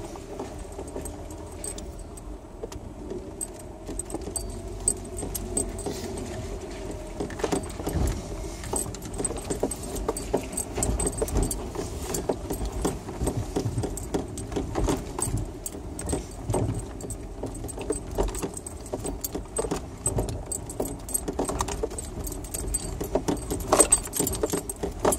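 Vehicle driving slowly over a rough dirt road, heard from inside the cabin: a low, steady engine hum with frequent clicks, jingling and rattles as it goes over bumps. The rattling gets busier in the second half.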